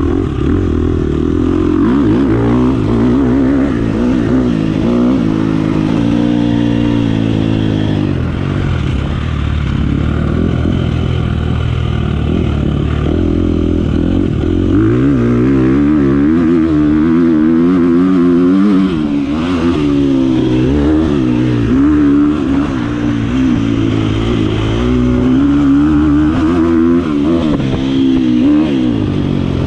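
Dirt bike engine under load, revving up and falling back over and over as the throttle is worked and gears change, its pitch climbing and dropping every second or two.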